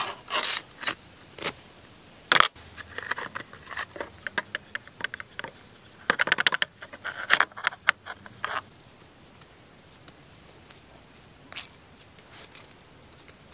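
Small metal clinks and scrapes as a forged steel shuriken is handled on a thin metal rod through its centre hole, with a sharp click about two and a half seconds in. A brush scrapes coating onto the blade around the middle, and the sounds thin out after about nine seconds.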